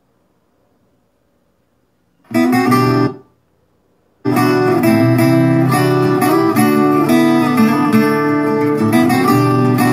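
Music led by acoustic guitar starts after about two seconds of near silence, breaks off after less than a second, then starts again about four seconds in and carries on steadily.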